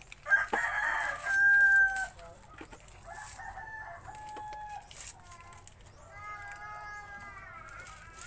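Roosters crowing: one loud crow about a second in, then fainter crows, the last wavering and falling at its end.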